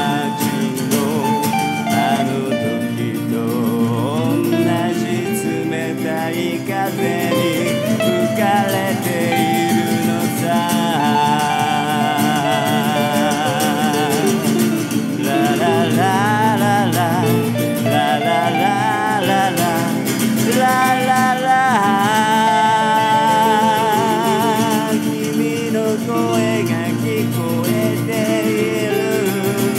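Instrumental break of a song: a lead electric guitar plays wavering, bent notes over an acoustic guitar accompaniment.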